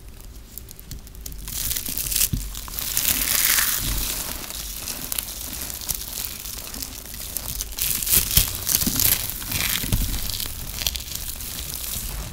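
Balls of dry shredded soap being crushed and crumbled between the fingers: a dense, crispy crackling of many small clicks. It starts about a second and a half in after quieter handling and rises and falls as each ball gives way.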